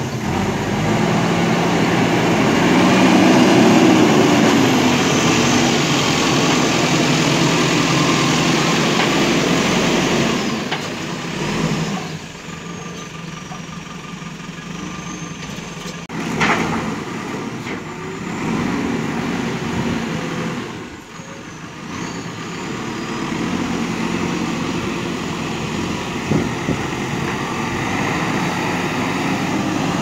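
JCB 3DX backhoe loader's diesel engine running as the machine works, its pitch rising and falling. It is loudest over the first ten seconds and quieter from about twelve seconds on, with a sharp knock at about sixteen seconds.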